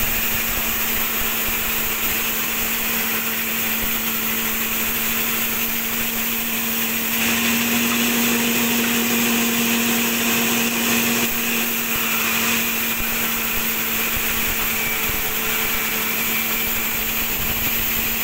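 Large sawmill band saw running with a steady hum while its blade cuts along a log. It gets louder from about seven seconds in.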